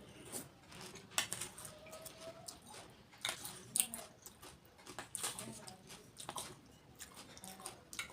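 Close-miked eating of golgappe: crisp, irregular crunches and cracks as the hollow fried puris are bitten and chewed, with wet mouth sounds between them.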